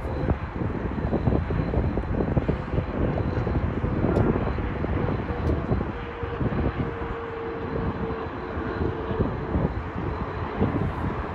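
Regional jet on approach with its landing gear down: a steady jet-engine hum with a faint whine that drops slightly in pitch about halfway through. Wind buffets the microphone throughout.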